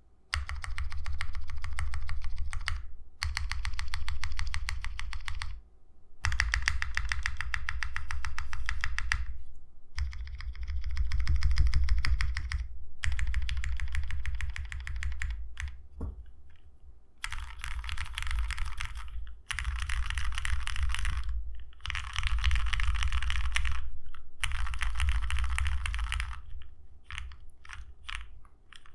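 Fast typing on a Foxlab Leaf 65 mechanical keyboard with lubed Cherry MX Black linear switches on an FR4 plate and PBT keycaps. The typing comes in bursts of a few seconds with short pauses between them. Near the end it thins to a few separate keystrokes.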